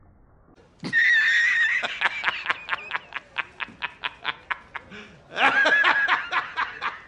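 A man laughing hysterically in a film clip. It opens with a long, shrill, high-pitched cackle, breaks into rapid ha-ha bursts about six a second, then a second shrill cackle comes in about five and a half seconds in.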